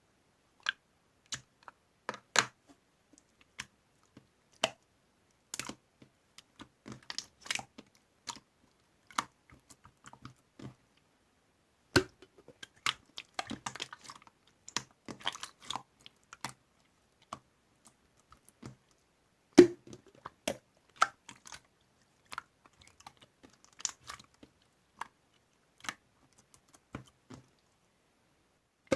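Slime being pressed and poked by hand, giving irregular sticky clicks, pops and crackles, in dense clusters with short pauses between.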